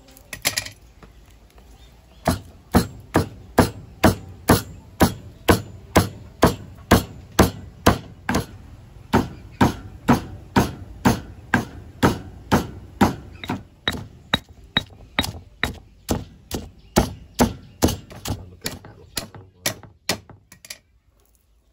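Pestle pounding ingredients in a mortar: steady, evenly spaced strikes about two a second, starting about two seconds in and stopping just before the end.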